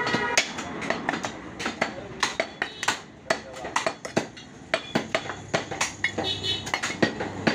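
A butcher's large knife cutting and chopping beef on a wooden chopping block: sharp, irregular knocks of the blade on the wood, about three a second, with brief metallic ringing now and then.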